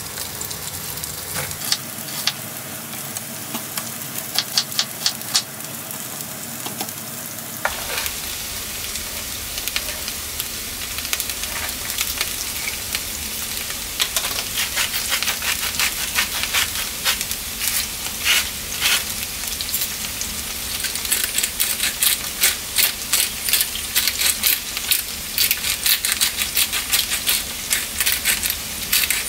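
Knife chopping onion on a bamboo cutting board for the first several seconds, then sliced onion, garlic and green chilli sizzling in oil in a frying pan, with crackling pops that grow denser toward the end. Near the end a pepper mill grinds over the pan.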